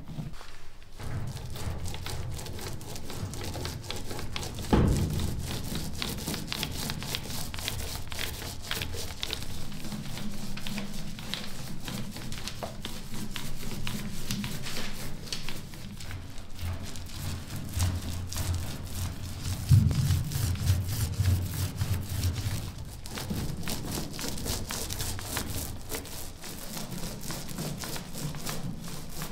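A paint roller wet with paint rolling over kitchen cabinet doors and drawers and through the paint tray: a steady sticky crackle. There is a louder knock about five seconds in and another about twenty seconds in.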